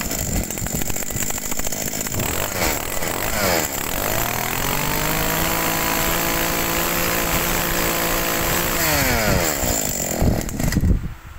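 Robin NB2200 small two-stroke brush cutter engine running. About four seconds in its pitch dips and then climbs to a steady high whine, held for several seconds. Near the end it falls away as the throttle is let off. A small engine that runs punchy.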